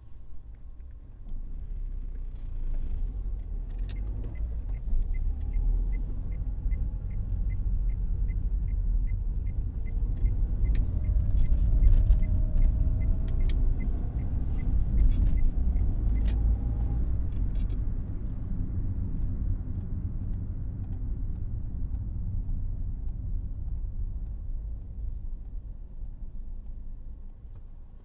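Car being driven in city traffic, heard from inside the closed cabin. A low engine and road rumble swells as the car speeds up, with a rising engine note in the middle, then dies away as it slows. A regular ticking runs through the middle stretch.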